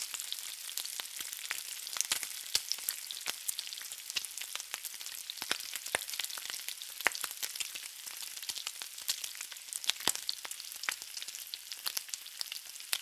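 Bacon strips frying in a pan: a steady sizzle of hot fat with frequent sharp pops and crackles.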